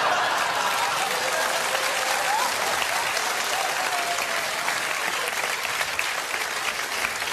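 Studio audience applauding, a dense steady clapping that slowly eases off toward the end.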